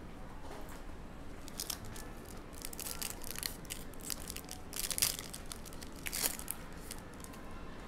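A foil trading-card pack wrapper being torn open and crinkled by hand: a run of irregular crackles and rips, the sharpest about five seconds in and again just after six.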